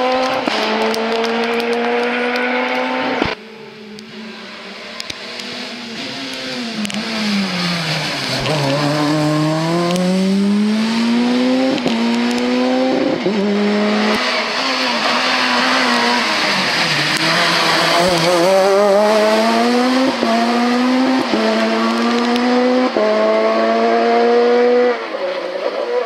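Peugeot 207 S2000 rally cars' naturally aspirated 2.0-litre four-cylinder engines at full throttle. The pitch climbs in short steps through quick upshifts, with a falling downshift under braking about a third of the way through before the car pulls hard again. Several passes are joined by abrupt cuts.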